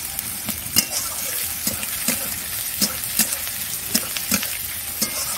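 Chopped onions frying in hot oil in a metal kadai, a steady sizzle, with a metal spatula scraping and clicking against the pan about twice a second as they are stirred.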